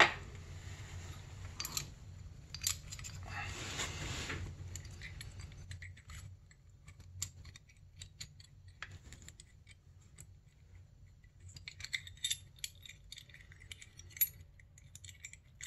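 Small metal parts of a two-stroke snowmobile exhaust power valve assembly (valve, spring and cover) clicking and rattling as they are handled and fitted into the cylinder by hand, with a quick run of clicks near the end. A steady low hum sits underneath.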